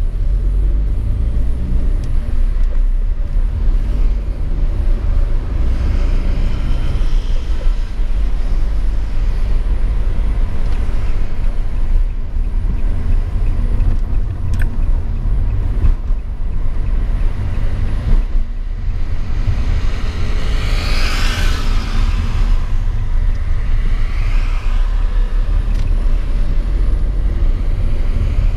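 Steady low rumble of a car driving on a city road, engine and tyre noise. About three-quarters of the way through, another vehicle passes close by, its hiss swelling and fading over a couple of seconds.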